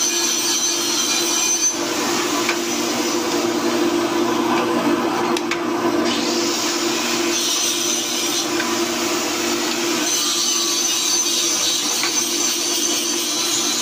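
Large pillar drill press running, its bit cutting into metal workpieces: a steady motor hum under a continuous scraping, grinding noise of the bit.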